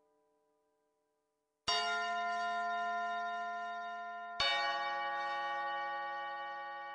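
Roland GR-55 guitar synthesizer playing its 'Tower Bell' PCM patch: two bell notes of different pitch struck a little under three seconds apart, each starting suddenly and ringing on with a long, slow decay. A previous note dies away just before the first strike.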